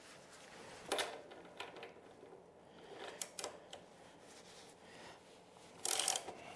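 Metal clicks and clatter of a hand tool fitting a stainless steel nylock bolt at the lower mount of a Lambretta's rear shock absorber: a few separate clicks, then a quick cluster of clicks near the end.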